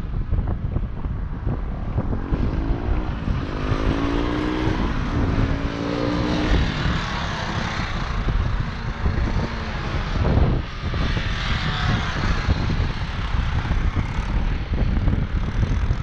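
Motorcycle engines at low speed, one note rising and then falling in pitch as a bike passes about three to six seconds in, over steady wind rumble on the microphone.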